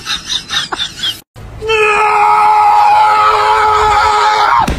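A loud, long, high-pitched cry held on one steady note for about three seconds, dipping in pitch just as it stops. It starts about two seconds in, after a few short sounds and a brief drop to silence.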